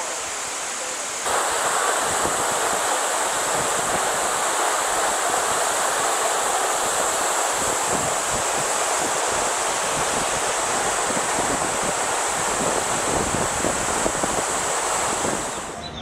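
Waterfall: a steady rush of water pouring down a rock face into its plunge pool. It gets louder about a second in.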